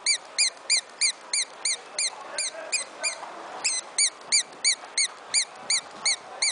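Duckling hand puppet's toy chirper peeping: short, high-pitched peeps that rise and fall in pitch, repeating evenly about three times a second, with one brief pause about three seconds in.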